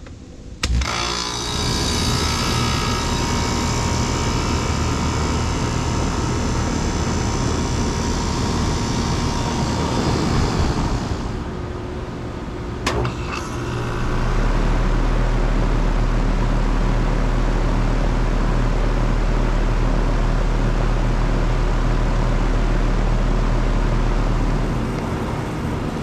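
Air-conditioner condensing units starting up and running, one after another. About a second in, one unit starts abruptly: its compressor and condenser fan come on with a steady running noise and a hiss, which fades around eleven seconds. After a sharp click at about thirteen seconds, a second condenser starts at about fourteen seconds with a louder, steady low hum.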